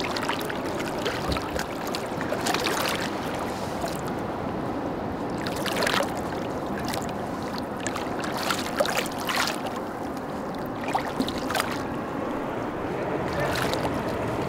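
Water sloshing and splashing against the side of a small boat as a trevally is held at the surface and moved to revive it before release: a steady wash of water with irregular sharper splashes.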